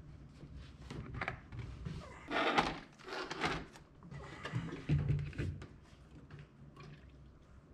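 Irregular knocks, clatter and scraping from plastic detailing containers being handled while the wash products are prepared, loudest about two and a half and five seconds in.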